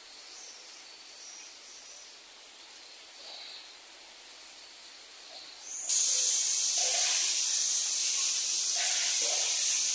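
Steady rain falling, an even hiss. About six seconds in it cuts abruptly to much louder heavy rain pouring off a roof edge and splashing onto a hard yard.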